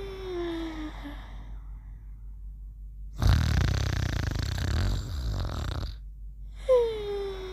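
Exaggerated snoring. It opens with a clear tone falling in pitch on the breath, then a long rasping snore from about three seconds in that lasts nearly three seconds, then another falling tone near the end.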